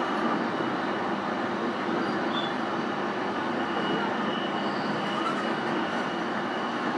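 Running noise heard from inside a JR East E233-series commuter train's motor car (MoHa E232) travelling at a steady pace: an even rumble of wheels on rail and car body, with no rise or fall in pitch.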